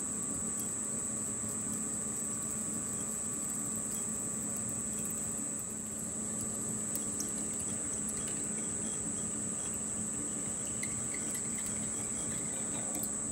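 13-inch South Bend metal lathe running with its four-jaw chuck spinning while a twist drill in the tailstock feeds a pilot hole into aluminium: a steady hum with a thin high whine over it.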